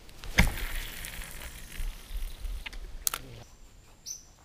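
A cast with a spinning rod and live bait: a sharp click about half a second in, then a short hiss, and another click around three seconds in. A bird gives a short falling chirp near the end.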